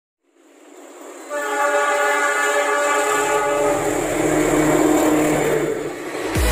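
KAI diesel locomotive sounding one long chord horn blast of about four seconds, with the engine's low rumble coming in under it partway through. The sound fades in at the start.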